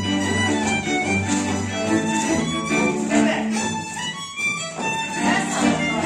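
Hungarian folk dance music led by fiddle, with a low bass line underneath, thinning briefly a little past four seconds in.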